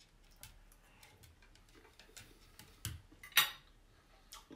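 Soft clicks of chewing, then a metal fork clinking as it is set down, a sharp ringing clink about three and a half seconds in, the loudest sound.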